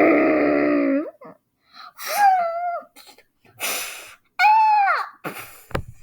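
A person's voice making wordless sounds: a held moaning cry, then two short whining cries, the second falling in pitch, with gasping, panting breaths between them. The sounds are in the manner of an excited dog.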